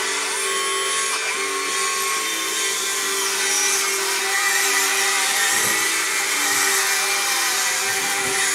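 Small electric motors and gearing of an RC Doepke toy dragline whining as it swings and lowers its boom, the pitch rising and falling as the motors change speed.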